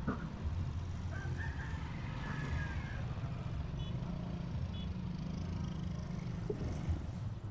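Street ambience: a steady low hum of motor vehicle engines, with a brief higher wavering call between about one and three seconds in.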